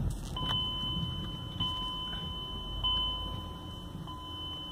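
Car's electronic warning chime: a steady high tone that restarts about every second and a quarter.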